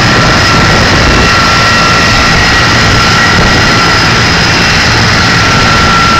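Erickson S-64 Air-Crane heavy-lift helicopter running on the ground before take-off. Its twin turboshaft engines give a loud, steady whine at several pitches over a low rumble from the turning rotors.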